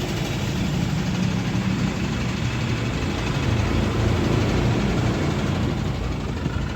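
Diesel engine of a Hydra pick-and-carry crane running steadily during a steel lift.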